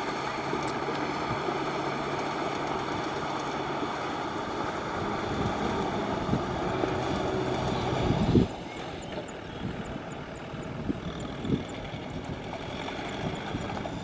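Tractor engine running steadily. It cuts off abruptly a little over halfway through, leaving a quieter engine hum with a few short knocks.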